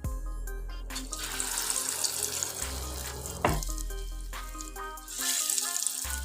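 Moong dal pakora batter sizzling in hot oil in a wok, with a loud hissing surge about a second in and another near the end as new pieces are dropped in. Background music with a steady beat runs throughout.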